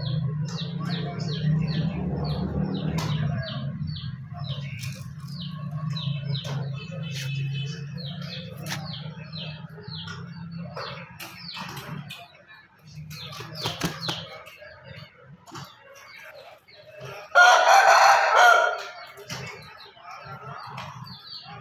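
An Aseel rooster crows once, loud, for about two seconds, some seventeen seconds in. Before that, small birds chirp over and over above a steady low hum that stops about twelve seconds in.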